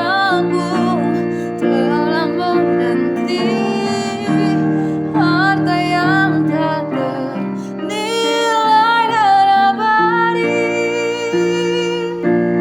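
A woman singing a gospel song with piano accompaniment; the voice stops about ten seconds in and the piano chords carry on alone.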